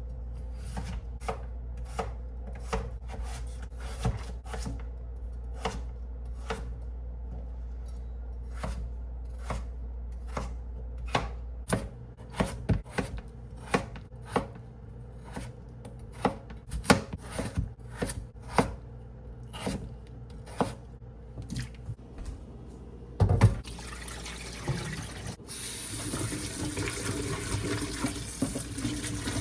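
A run of sharp, irregular knocks and clatters of kitchen work, then a water tap running into a sink from about three-quarters of the way through, steady until the end.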